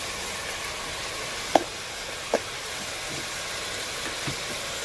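Oil sizzling steadily in a pan of sautéing onion, garlic, ginger and tomato. A utensil clinks sharply against the pan about one and a half seconds in, and again under a second later.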